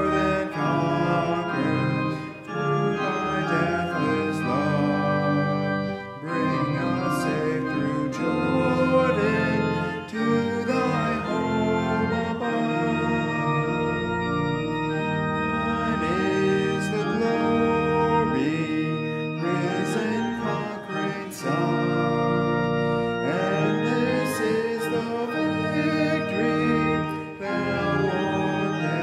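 Church organ playing a hymn in slow held chords, with a man's voice singing the hymn along with it.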